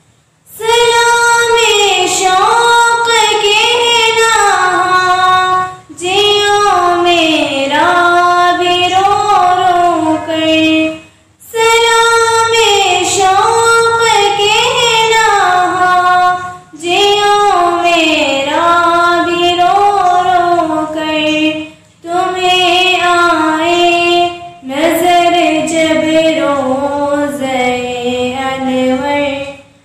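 A girl singing a naat solo and unaccompanied, in long melodic phrases with short pauses for breath between them.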